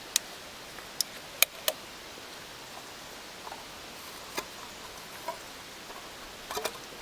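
A handful of short, sharp clicks and light knocks, spaced irregularly over several seconds, from a petrol container being handled.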